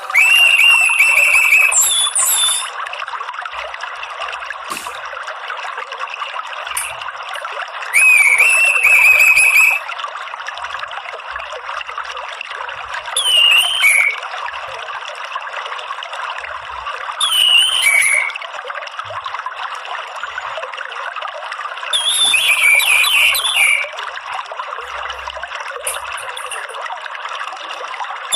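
Orange-headed thrush calling, five loud whistled phrases spaced four to five seconds apart, some held and some falling, the last a quick run of notes, over steady trickling water.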